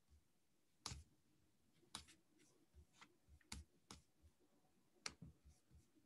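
Faint, irregular clicking of computer keys, about a dozen sharp clicks with soft thuds beneath, over near silence.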